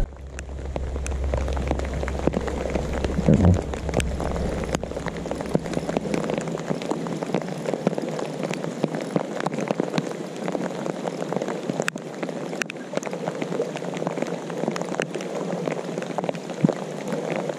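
Rain falling on the lake: a steady hiss with many small drop ticks. A low hum underneath stops about six seconds in.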